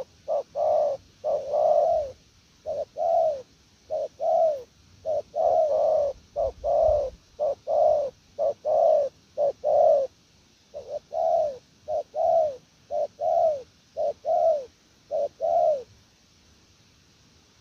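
Spotted dove cooing: a long run of short, low coo notes, each falling slightly in pitch, delivered in quick groups with brief pauses. It stops a little before the end.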